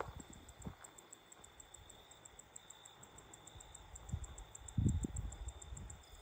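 Crickets chirping at night in a fast, even pulse, about eight chirps a second, over a steady high drone of insects. A few dull low thuds come about five seconds in.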